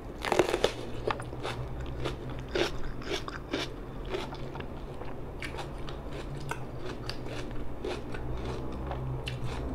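Crisp crunch of a bite taken from a raw orange pepper just after the start, then chewing with scattered crunches.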